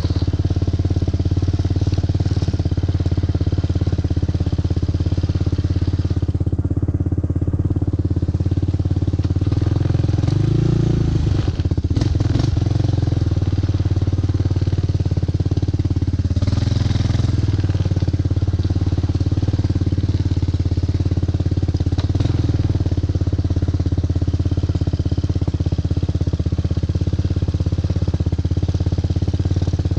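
Four-wheeler (ATV) engine running steadily while riding, with brief changes in its note about 11 and 17 seconds in.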